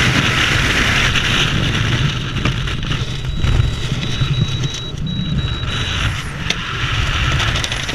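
Wind rushing over a skydiver's helmet-mounted camera, a loud hiss that eases after about two seconds into lower, gusty buffeting as the skydiver flies under an open parachute.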